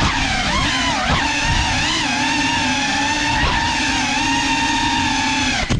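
GEPRC CineLog35 cinewhoop quadcopter's motors and propellers whining, the pitch shifting up and down with the throttle. Near the end come a few quick knocks, and the motors cut out abruptly.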